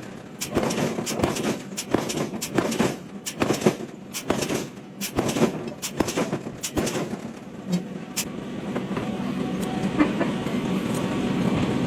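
Forging-shop machinery: a run of sharp, irregular metal impacts and clanks. About eight seconds in it settles into steady machine running with a low hum and only the odd knock.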